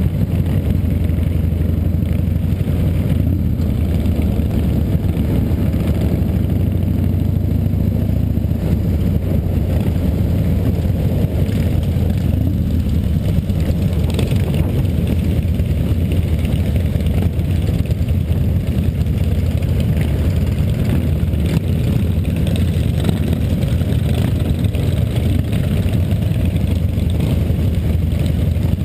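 Cruiser motorcycle engine running steadily at cruising speed, a continuous deep low rumble, with other motorcycles riding close by in a group.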